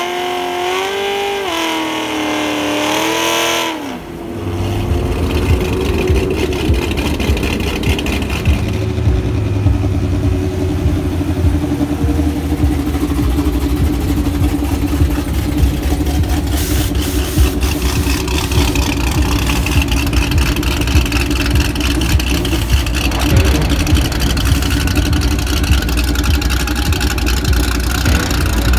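A cammed LS7 V8 in a C6 Corvette Z06 is revved high, its pitch wavering, as the rear tires smoke in a burnout. About four seconds in, the revs drop and the engine settles into a low, choppy idle.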